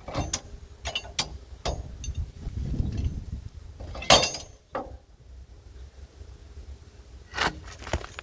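A steel single-bevel edging tool is scraping and prying loose bark and dirt off a pitch pine log in separate strokes, with a longer rough scrape partway through. Sharp cracks come as pieces break away, the loudest about four seconds in and two more near the end.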